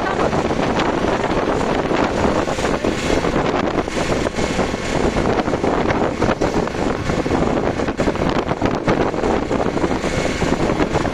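Wind buffeting the microphone over the steady noise of a moving vehicle on the road.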